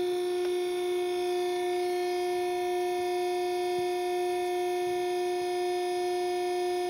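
Iroquois ironworker running its shear through a full-width cut of 3/16-inch steel plate: a steady electric hum with several pitched overtones, holding an even level.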